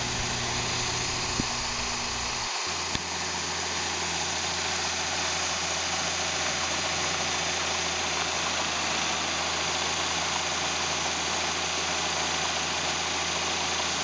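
International combine running steadily while its unloading auger pours shelled corn into a grain trailer, a constant machine drone under a wide hiss. The low hum shifts abruptly about two and a half seconds in, then holds even.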